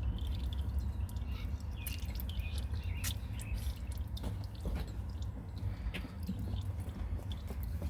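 Used engine oil dripping from the open drain-plug hole into a drip pan while the engine drains, heard as scattered small ticks over a low steady rumble.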